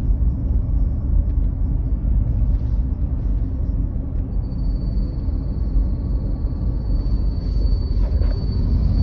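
Honda CR-V heater blower motor running with a steady low rumble of air and motor; about four seconds in, a thin high-pitched whistle from the blower motor sets in and holds steady. The whistle is the fault the owner is complaining of.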